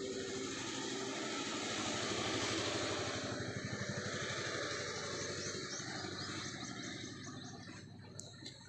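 A motor vehicle's engine running, growing louder and then fading away over several seconds.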